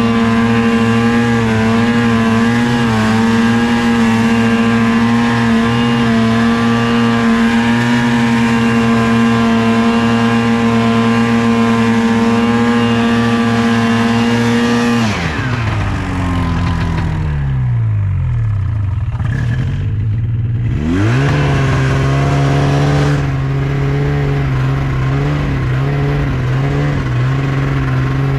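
Snowmobile engine running at steady high revs; about 15 seconds in the revs fall away, then pick up again around 21 seconds and settle at a lower steady speed.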